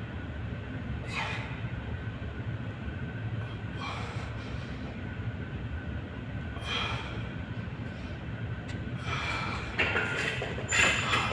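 A man's short, forceful breaths about every three seconds, in time with dumbbell shoulder-press reps, over a steady low rumble of room noise; the breaths are loudest near the end as the set finishes.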